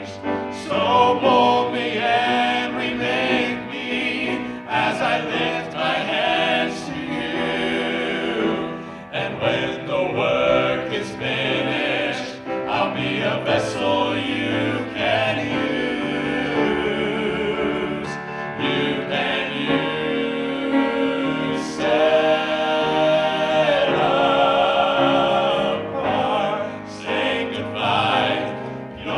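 A vocal group singing a gospel song in harmony with musical accompaniment, the voices carrying vibrato on held notes.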